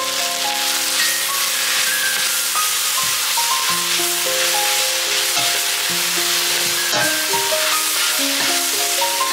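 Kale, onions and ham sizzling as they fry in a pot and are stirred with a wooden spatula. Background music with a simple melody of held notes plays over it.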